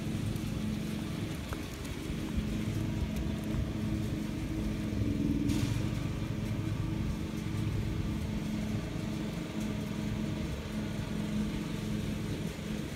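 Steady low engine or motor hum with faint outdoor background noise; a brief hiss about five and a half seconds in.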